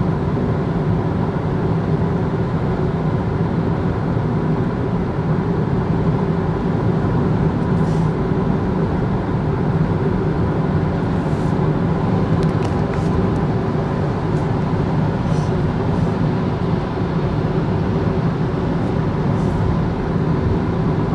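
Steady road and engine noise of a car cruising at motorway speed, heard from inside the cabin: a continuous, even rumble of tyres and engine.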